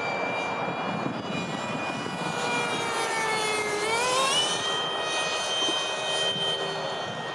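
Electric ducted fan (WeMoTec Midi, six-blade) of a Freewing Eurofighter RC jet whining in flight; its pitch slides down, then climbs quickly about four seconds in and holds high as the throttle is opened.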